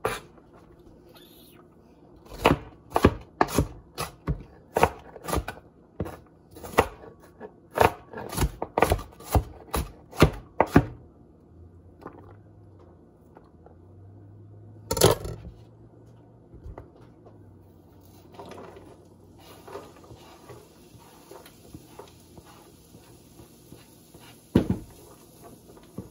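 Chef's knife chopping red onion on a plastic cutting board, about two chops a second for some eight seconds, then a single louder knock. In the second half a steady faint hiss sets in, with one more knock near the end.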